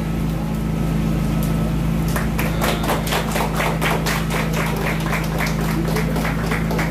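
A small group clapping their hands after a ribbon is cut, beginning about two seconds in and going on quickly and unevenly, over a steady low hum.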